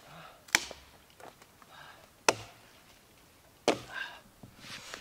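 Three sharp chops of a hand-swung blade biting into felled log wood, roughly one and a half seconds apart.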